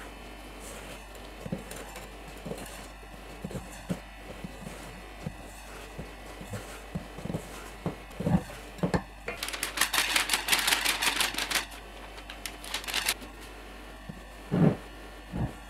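Spatula folding sponge-cake batter in a stainless steel mixing bowl: soft scrapes and taps against the bowl, with a few louder knocks. For about four seconds in the middle comes a fast, dry rattle of clicks as more flour goes into the bowl.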